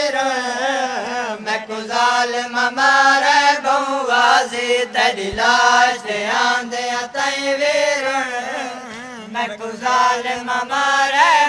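Men's voices chanting a noha, a Shia Muharram lament, in long melismatic lines that rise and fall, over a steady low held note.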